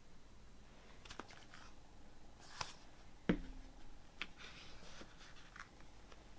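Hands handling and opening a plastic multi-disc CD case: scattered light clicks and rustles, with one sharper plastic clack a little after halfway through.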